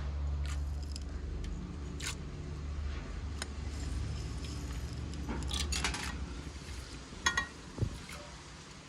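Dishes and metal utensils clinking and scraping, with a quick run of clinks a little past the middle and two sharp clinks near the end, over a low steady hum.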